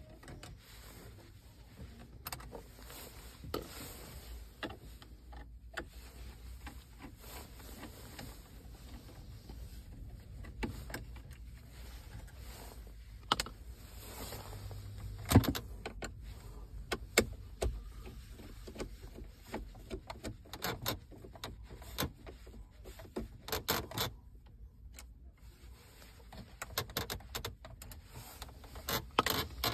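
Plastic dashboard trim and a car radio being worked with a plastic pry tool and a metal removal rod: irregular clicks, taps and scrapes, with one sharp click about halfway through the loudest and the clicks coming thicker in the last third.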